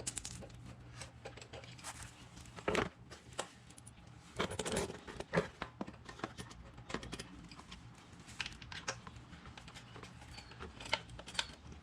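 Scattered light clicks, taps and knocks of small parts being handled: the small guard and its Allen bolts being fitted back onto the motorcycle by hand, a few knocks louder than the rest. A low steady hum runs underneath.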